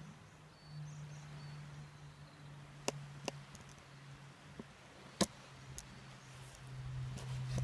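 Wood campfire crackling: a handful of sharp, separate snaps over a low steady hum.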